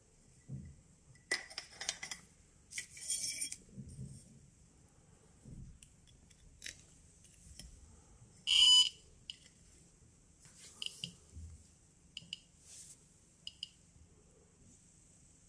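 A Geiger–Müller tube tester gives short high electronic beeps as it registers pulses, with one longer, loud beep about halfway through. Around the beeps come clicks and clatter from crocodile clips and metal tubes being handled.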